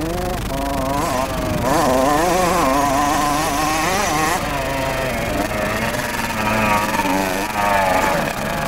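Kawasaki KX60's small two-stroke single-cylinder engine revving up and down as the bike is ridden around the track, its pitch rising and falling quickly with the throttle. A louder, hissier stretch comes about two seconds in.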